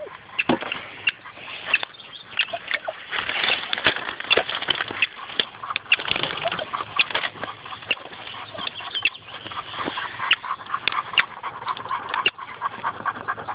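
German shorthaired pointers working at a hollow tree where a rockchuck is cornered: animal noises at close range, through a dense run of sharp clicks and knocks on wood.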